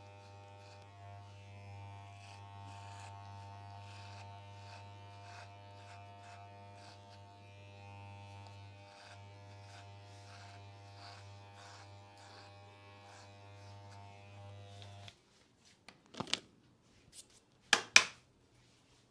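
Electric hair trimmer running with a steady buzz, with short crisp strokes about two or three a second as it works through hair. It cuts off suddenly about fifteen seconds in, followed by a few sharp clacks, the loudest sounds here.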